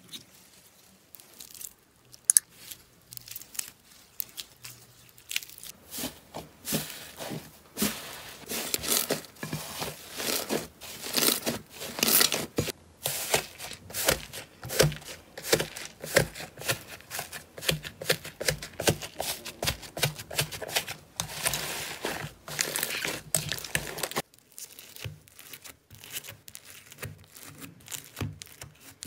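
Hands squeezing and poking slime: dense, fast crackling and popping from air pockets in the slime. About 24 seconds in it cuts to quieter, sparser crunching of foam-bead slime (floam).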